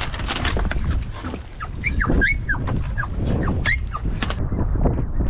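Wind buffeting the microphone while a hunting dog whines in short, high, bending calls, a cluster about two seconds in and another near four seconds.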